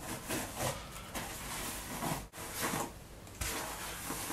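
Paddle hairbrush dragged through long curly hair in repeated strokes, a scratchy rustling that swells and fades with each stroke.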